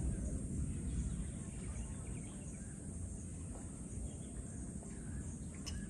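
Faint outdoor ambience: a steady high insect drone with a few scattered bird chirps over a low rumble.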